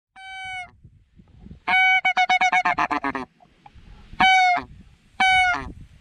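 Goose honks: a single honk, then a fast run of about a dozen short honks at roughly eight a second, then two more single honks near the end, each one steady in pitch.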